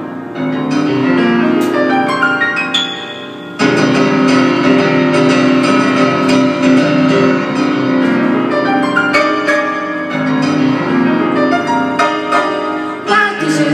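Grand piano played solo, a quieter passage that turns suddenly louder and fuller about three and a half seconds in, with chords and a running melody.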